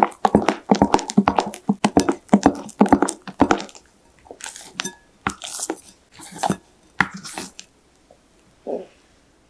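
Batter being mixed by hand in a glass bowl, quick even strokes about four or five a second that stop about four seconds in. A few softer scraping and rustling sounds follow.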